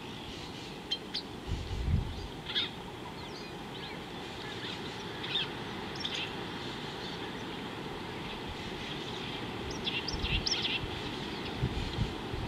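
Small birds giving short, scattered chirps, a few at a time with pauses between, over a steady low outdoor background noise. A few brief low thumps come about a second and a half in and again near the end.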